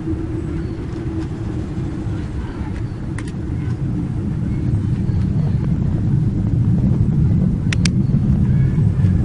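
Deep rumbling drone of the so-called 'sky trumpet' strange sound, steady and loud, swelling about halfway through, with a fainter higher hum early on that fades out.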